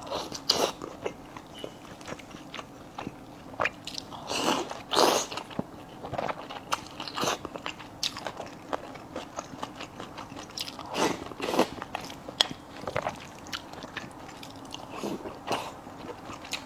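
Close-up eating sounds: chewing and biting into a fish roe and fish offal dish with rice, a run of irregular small clicks and wet mouth sounds with a few louder bites.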